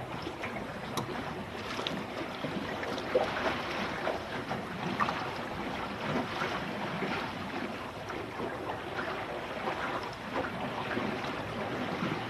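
Water rushing and splashing against the hull of a Finn dinghy under sail, an irregular patter of small slaps over a steady hiss, with wind on the microphone.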